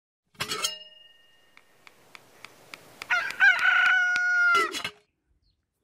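A rooster crowing once: a long crow that steps up, holds its last note and cuts off. Before it come a short sharp sound and a run of soft ticks, about three a second.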